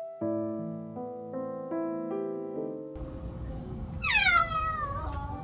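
Gentle piano background music. About four seconds in, a cat meows once, a long call that falls in pitch.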